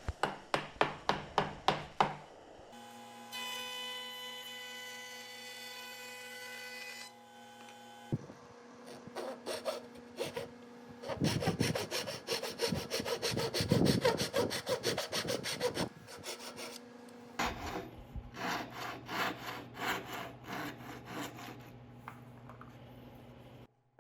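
Wood being worked by hand in quick back-and-forth strokes, several strokes a second, in a few separate stretches. A steady machine hum with a high whine fills a few seconds between them, and a lower hum runs under the last strokes before everything cuts off just before the end.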